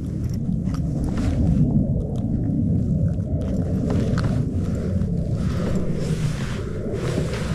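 Steady low rumble of an aircraft flying overhead, with scattered light clicks and knocks as a perch is handled in a landing net.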